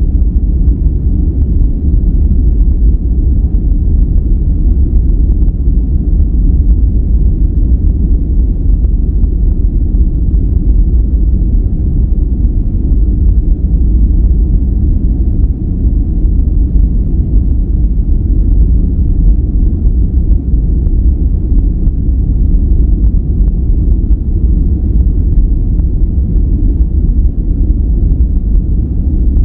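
Steady, unchanging relaxation noise track, loud and deep: most of its energy is a low rumble, with only a faint hiss above and nothing at the top.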